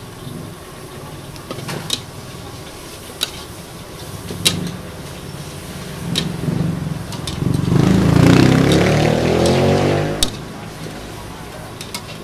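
A metal spatula clanks against a steel wok several times as noodles are stir-fried, over a low steady rumble. Partway through, a motor vehicle's engine swells up and passes, rising in pitch, and is the loudest sound for a couple of seconds.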